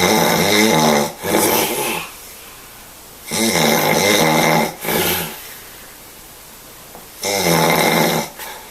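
Loud snoring: three snores about three and a half seconds apart, each a long one followed at once by a shorter one.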